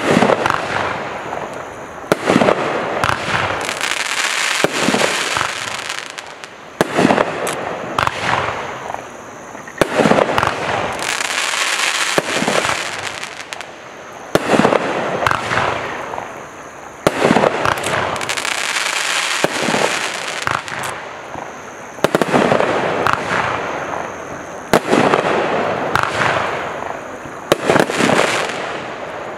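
Magnus 'Stay in Your Lane' 54-shot consumer fireworks cake firing in sequence: a sharp report roughly every second. Each report is followed by a second or two of hissing crackle from the bursting stars and glitter.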